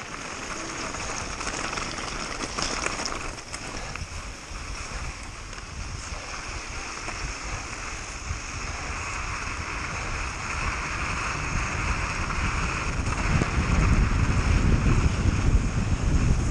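Steady rushing wind noise on the microphone, with a heavy low rumble that builds louder toward the end.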